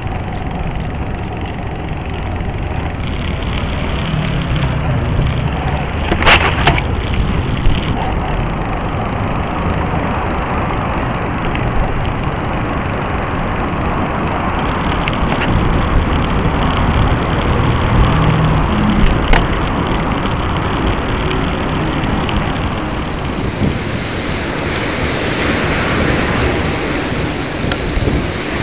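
Steady rolling noise of a bicycle riding on a paved street, picked up by a small action camera mounted low beside the chainring. A few sharp knocks and rattles are scattered through it.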